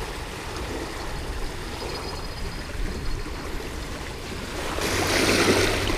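Small waves lapping and washing against a rocky lakeshore, with some wind; the wash grows louder near the end.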